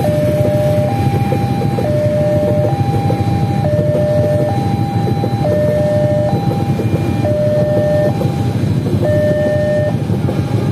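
Railway level-crossing alarm sounding, alternating between a high and a low tone about once a second, over the steady rumble of a freight train of empty flat wagons rolling past.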